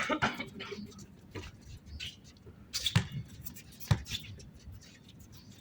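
Scattered thuds of a basketball game in play: the ball and players' feet hitting the court, the two strongest about a second apart past the middle, with faint voices.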